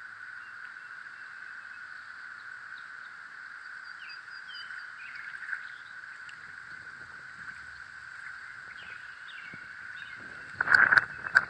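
Outdoor lakeshore ambience: scattered short bird chirps over a steady high-pitched drone. Near the end there is a brief loud burst of knocks and rustling.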